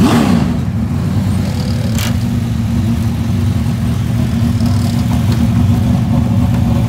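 Car engine running at a steady speed, its pitch holding level, with a faint click about two seconds in.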